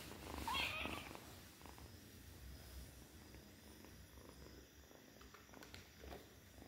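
Cat purring steadily, a low pulsing rumble, with one brief louder sound about half a second in.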